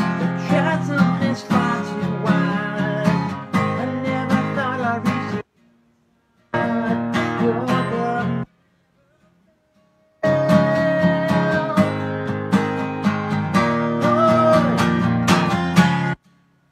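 Acoustic guitar strummed in a steady rhythm while a man sings along. The sound cuts out abruptly twice, for about a second a little past the middle and for nearly two seconds soon after.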